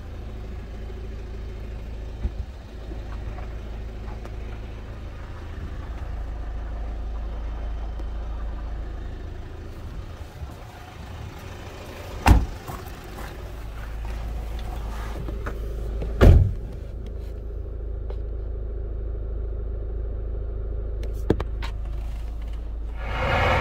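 A 2010 Hyundai Tucson's doors shutting twice, about four seconds apart, each a single sharp impact, over a steady low rumble.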